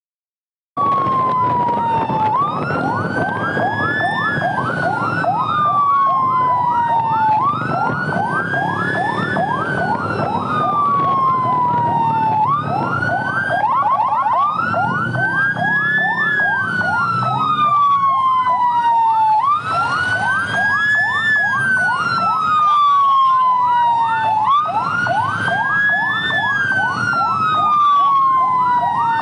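Two electronic emergency sirens sounding together: a slow wail rising and falling about every five seconds and a fast yelp repeating several times a second, over road and engine rumble. They cut in just under a second in.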